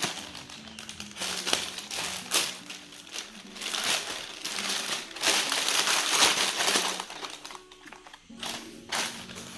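Packaging being handled and opened, with crinkling and rustling and many sharp crackles, heaviest about halfway through, over quiet background music.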